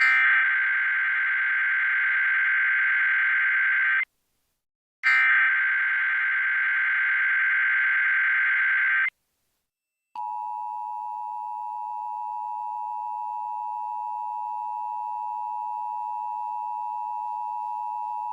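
Emergency Alert System SAME header: two bursts of warbling digital data tones, each about four seconds long, a second apart. After a second of silence, the EAS attention signal begins about ten seconds in, a steady two-tone beep (853 and 960 Hz sounding together) that announces the alert's voice message.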